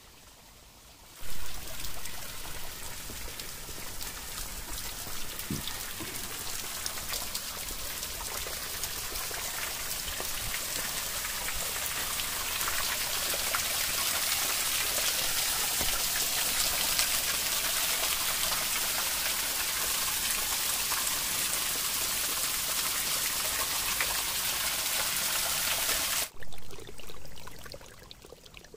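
Water trickling and splashing down a wet rock face, a steady patter of falling drops and rivulets. It starts suddenly about a second in and cuts off abruptly near the end, followed by two short, louder bursts of running water.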